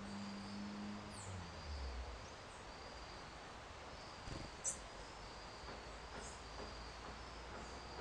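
Outdoor ambience of short, sharp, high chirps every second or so, the loudest a little past halfway, over a steady hiss and a faint repeating insect-like trill. A low hum fades out in the first two seconds, and a soft low thump comes just before the loudest chirp.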